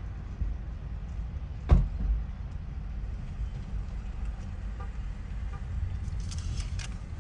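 Steady low rumble of a helicopter flying past at a distance, with a single sharp knock nearly two seconds in.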